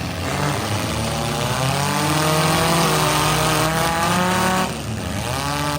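Demolition derby car engine revving: the pitch climbs over the first two seconds, holds high and loud, then falls off sharply near the end.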